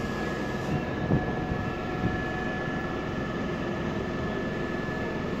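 Electric locomotive standing at the platform with its equipment running: a steady hum with a thin, high, unchanging whine, and a couple of light knocks in the first two seconds.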